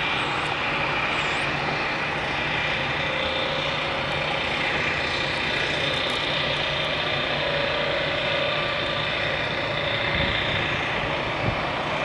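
A steady engine drone with a constant hiss, holding an even level throughout.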